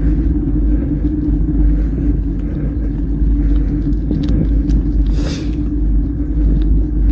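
Steady low rumble of wind and rolling noise from a mountain bike being ridden, with a constant hum and a few faint clicks; a short hiss about five seconds in.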